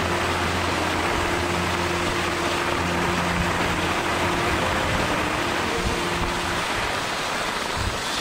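Steady rushing of wind over the microphone and skis sliding on packed snow during a slow downhill run, with a faint low hum underneath that drops away about two-thirds of the way through.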